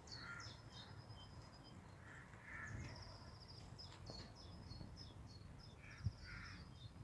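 Faint outdoor birdsong: small birds chirping in quick, high, repeated notes and short trills throughout, with a few lower calls from another bird at the start, in the middle and near the end.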